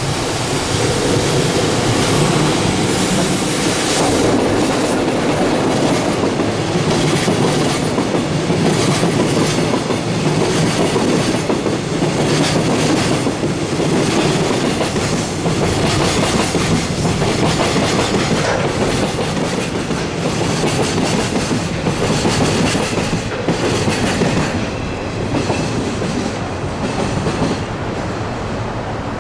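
An EF66 DC electric locomotive and a long freight train of flatcars loaded with rails pass through: a steady rumble with wheels clattering over the rail joints. The sound eases off near the end as the last cars go by.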